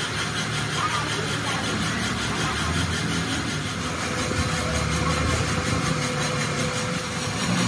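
A motor running steadily, with a faint steady whine in the second half.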